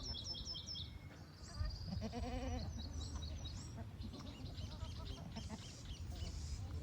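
A single wavering bleat from a sheep or other small livestock about two seconds in. Small birds chirp rapidly and repeatedly through the first half, over a steady low rumble.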